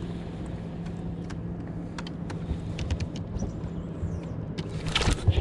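Steady low hum of the fishing boat's motor, with scattered light clicks and a louder rush of noise near the end.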